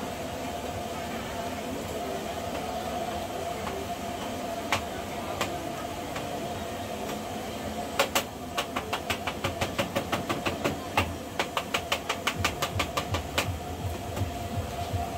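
Busy street-market background of chatter with a steady hum. About halfway through, a rapid run of sharp clicks or taps, roughly four to five a second, lasts about five seconds.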